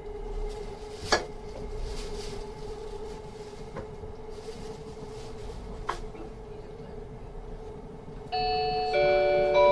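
Inside a moving express train: steady running noise with a steady hum and two sharp clicks. Near the end the onboard announcement chime starts, several bell-like notes in steps, signalling that a passenger announcement is about to follow.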